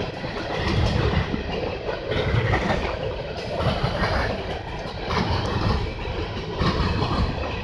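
Empty coal hopper cars of a BNSF train rolling across a railroad bridge overhead: a steady, loud rumble with wheel clatter.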